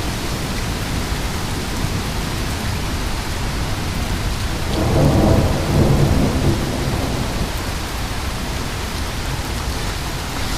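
Heavy rain pouring steadily in a thunderstorm, with a low rumble of thunder swelling and fading about halfway through.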